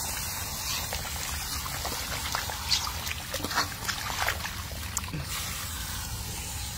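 Water from a garden hose shower-spray nozzle pouring steadily into a stainless steel bowl of cut fish pieces, with a few brief sharper sounds around the middle.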